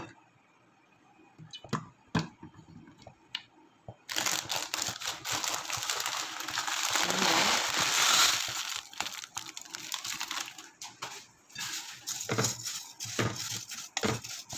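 A plastic bag of dry vermicelli crinkling as it is opened and the noodles are poured into a pot. The noise starts suddenly about four seconds in and is loudest a few seconds later. Near the end a wooden spoon knocks and scrapes as the noodles are stirred.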